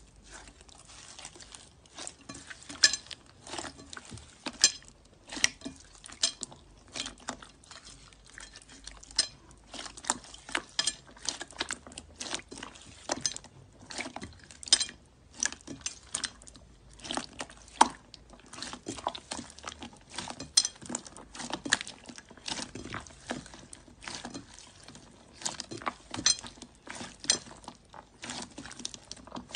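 Hands squeezing and kneading thick glossy slime mixed with white foam beads, giving a run of irregular wet clicks, pops and crackles, several a second.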